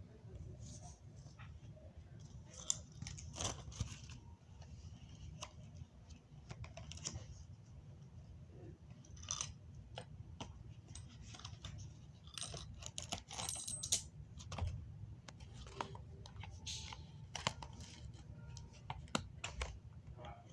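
Scattered light clicks, rustling and small metallic jingles as a new pair of Smith & Wesson handcuffs and their packaging are handled.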